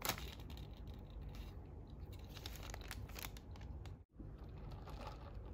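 Baking paper crinkling and rustling as food is handled on it, with a sharp crackle right at the start and a quick run of crackles around three seconds in. The sound drops out for a moment about four seconds in, then the rustling picks up again more softly.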